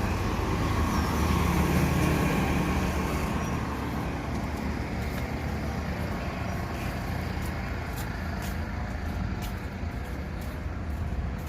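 Steady rumble of road traffic, easing off slowly, with a few light clicks in the second half.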